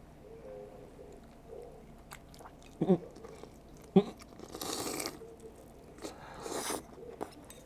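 A person chewing a mouthful of sarmale, a grape-leaf roll in tomato sauce, whose leaf takes a while to chew through. There are two sharp clicks about a second apart and two longer, noisy mouth and breath sounds.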